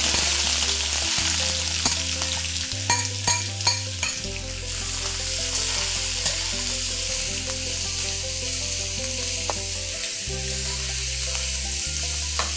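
Sliced onions frying in hot ghee in a wok with a steady sizzle, stirred with a spatula. A few sharp clicks of the spatula against the pan come a few seconds in.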